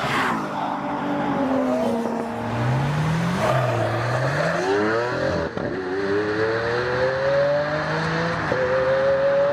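Pontiac Fiero GT's 2.8-litre V6 engine revving and accelerating. Its pitch rises and falls a few times, dips briefly about halfway through, then climbs steadily to the end.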